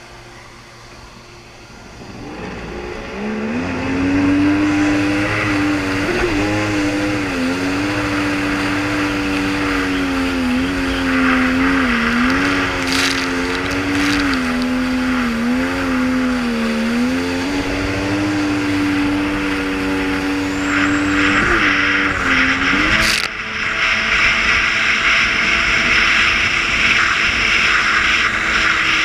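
Jet ski engine running at high, steady revs with small dips, its pitched drone swelling up over the first few seconds. About 23 s in the engine tone stops abruptly while a loud rushing hiss carries on.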